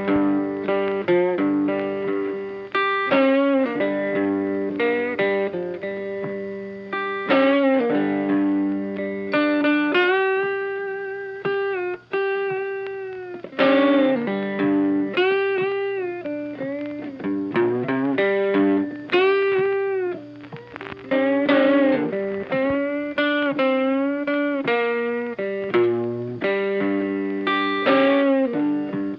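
Background music: a plucked guitar melody with notes bending up and down over a steady accompaniment.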